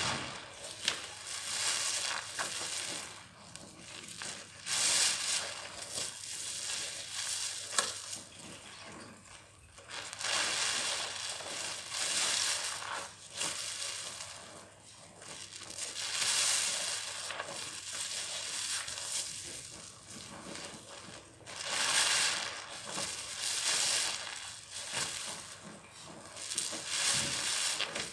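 Soap-soaked sponges squeezed and kneaded by hand in thick suds: wet squelching with crackling, fizzing foam, coming in repeated surges every couple of seconds.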